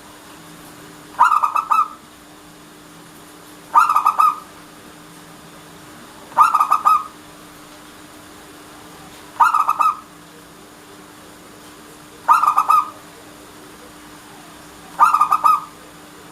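Local Indonesian zebra dove (perkutut) cooing: six short phrases of rapid stuttering coo notes, one about every three seconds, over a faint steady hum.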